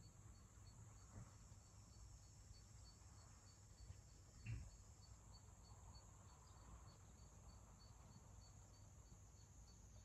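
Faint countryside ambience: a high, thin chirp repeating evenly about two and a half times a second over a steady soft hiss, with one soft thump about four and a half seconds in.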